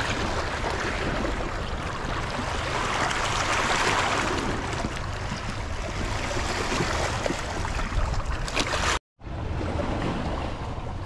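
Steady rush of the Columbia River's moving water with wind on the microphone. The sound cuts out briefly about nine seconds in.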